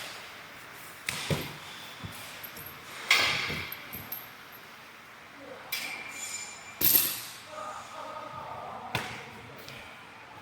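A few scattered metallic knocks and clinks, some ringing briefly, over a quiet background with no engine running.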